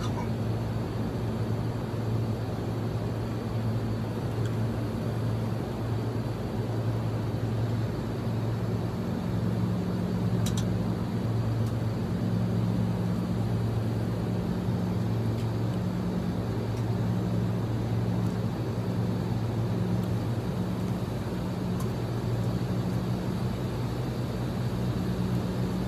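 Steady cabin noise of a private jet: a constant rush with a low hum underneath.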